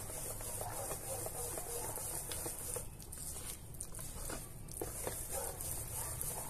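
Wire whisk beating a thick flour-and-egg batter in a stainless steel bowl: a steady soft stirring noise with faint light clicks of the wires against the metal.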